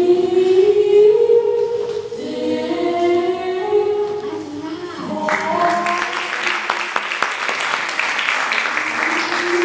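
Choral singing, a melody of held notes stepping up and down; about five seconds in, audience applause breaks out and carries on over the singing.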